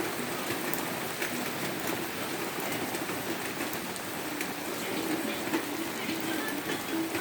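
Steady heavy rain falling, with many small, scattered drop ticks over an even hiss.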